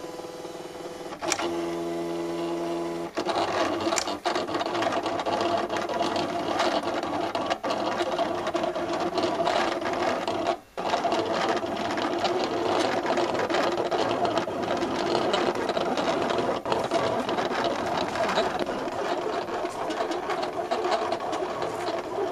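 A 13-inch contour cutter at work, its motors driving the blade head and paper as the blade cuts around the outside edge of a printed graphic. A steady tone starts about a second in, then gives way to a busy, shifting whir, which stops for a moment about ten seconds in.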